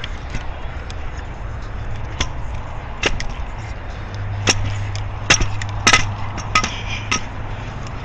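Aluminium Trikke scooter knocking down concrete steps, a string of sharp, irregular metal clacks and thumps over a low rolling rumble. A steady low hum joins about halfway through.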